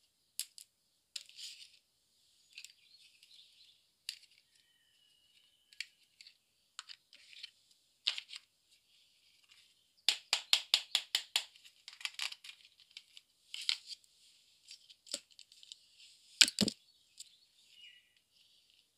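Small plastic toy accessories being handled and set down on a table: scattered light clicks and taps, a quick run of about ten clicks a little after ten seconds, and one louder knock about three-quarters of the way through.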